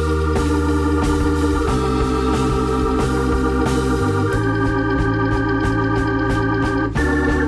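Background music: sustained organ-like keyboard chords that change every second or two over a steady beat.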